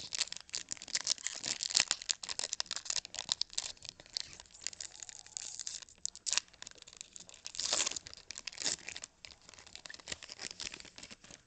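Dense, irregular crackling and rustling from a stack of glossy Topps Chrome trading cards being handled and slid over one another close to the microphone, louder for a moment about two seconds in and again near eight seconds.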